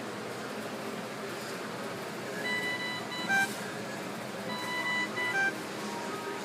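Two short two-note electronic beep sequences from a Dräger Evita 2 Dura ventilator, over a steady hiss. Each sequence is a tone followed by a brief lower tone.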